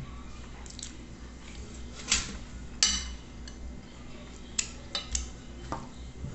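Metal fork tines clinking and scraping against a ceramic plate several times, sharp separate clicks spread through, while a mouthful is chewed.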